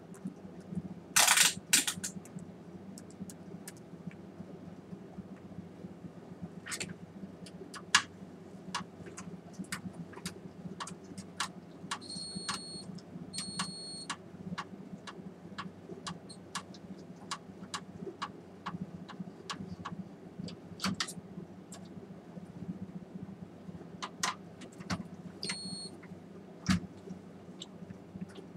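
Scattered clicks, taps and rattles of metal and plastic parts as hands work inside an opened BenQ MP515 projector's chassis, with a loud clatter about a second in, over a steady low hum. Three short high electronic beeps sound, two close together in the middle and one near the end.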